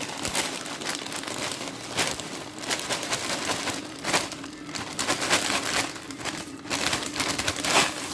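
Plastic pasta packaging crinkling in irregular crackles, louder in a few grabs, as dried tagliatelle is taken out of the packet.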